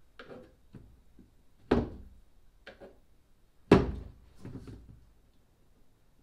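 Plastic glove box knocking against the edges of its cutout in a painted boat console as it is shoved from side to side to mark its position: two sharp knocks about two seconds apart, the second the louder, with a few softer bumps between.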